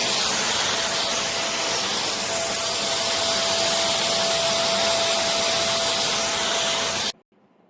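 Khind bagless vacuum cleaner running steadily, a rushing airflow with a thin steady whine, cutting off suddenly near the end.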